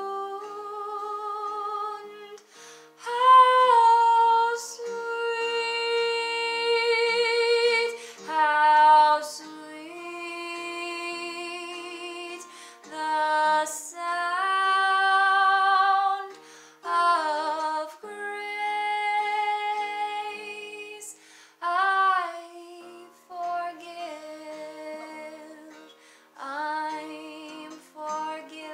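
A woman singing a wordless melody over an acoustic guitar, in long held notes with a wavering vibrato and short breaks between phrases.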